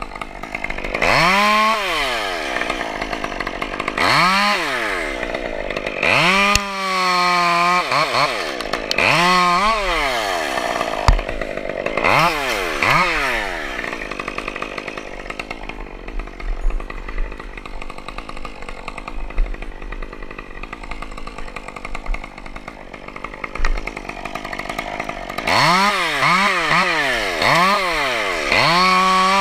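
Chainsaw revving up and falling back in short bursts about five times, then running steadily for about ten seconds, as when held in a cut through pine, then revving quickly up and down again near the end.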